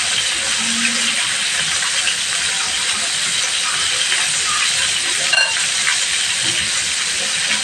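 Chicken pieces frying in shallow hot oil in a wok, a steady sizzle, with one sharp click about five and a half seconds in.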